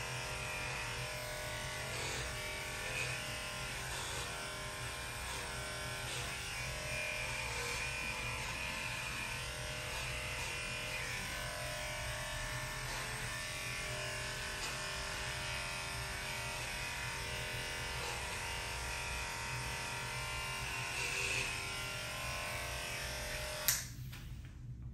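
Electric pet grooming clipper running steadily while clipping a Shih Tzu's coat, switched off with a click about a second before the end.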